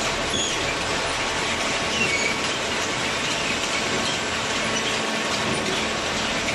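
Hydraulic baler machine running: a steady, loud mechanical rush with brief high squeaks scattered through it.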